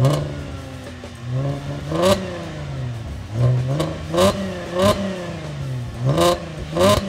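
Fifth-generation Chevrolet Camaro engine revved at a standstill in a series of throttle blips, about six in all, each rising quickly and dropping back toward idle.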